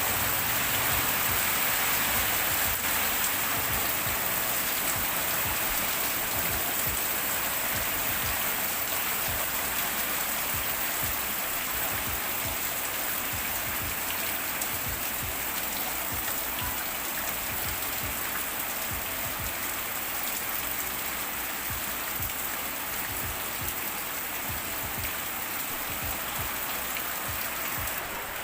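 Heavy rain pouring down in a dense, steady hiss, easing slightly in loudness over the stretch.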